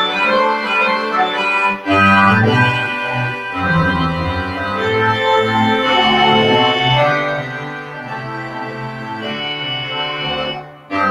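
Church organ playing sustained chords, with low bass notes coming in about two seconds in and a brief break between phrases near the end.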